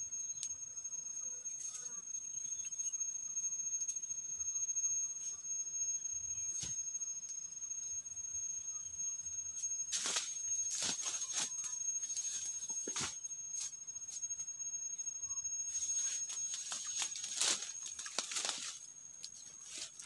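Steady high-pitched drone of forest insects throughout. About halfway through, footsteps crunch over dry leaf litter, then near the end a busier run of crackling rustles and knocks as the man works at the campfire with a machete.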